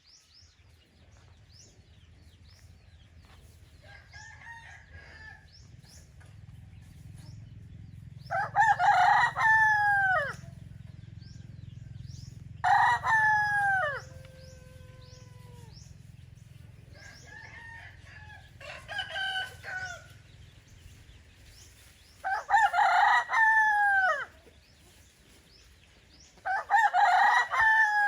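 Roosters crowing in turn, about six crows, each a second or two long and dropping in pitch at the end. Some crows are loud and close, others fainter and further off, over a low steady hum.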